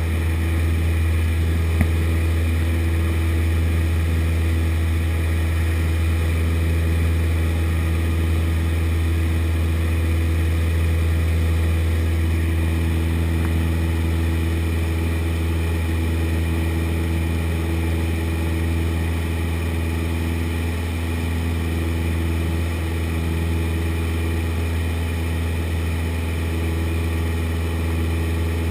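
Steady drone of a high-wing light aircraft's engine and propeller in flight, heard inside the cabin, with a single brief click about two seconds in.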